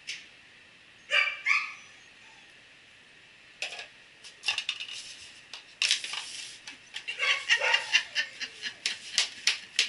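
A dog gives two short barks, then knocks over and chews disposable cups: a fast, irregular run of sharp crackling crunches that gets denser toward the end as it destroys a cup to get the treat.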